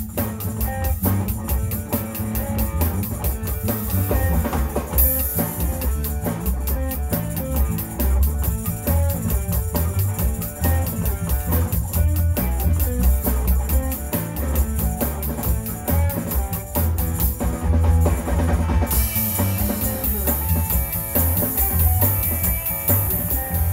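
Chicago-style electric blues band playing, with a driving drum-kit beat, bass and electric guitar. The cymbals get louder in the last few seconds.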